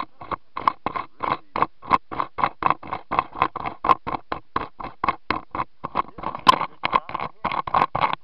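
Rapid, irregular rustling and knocking of clothing against a body-worn camera's microphone, several times a second, as the wearer moves about.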